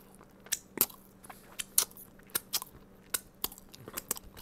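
Close-miked chewing of soft cheesy bread: a string of small wet mouth clicks and smacks, about three a second.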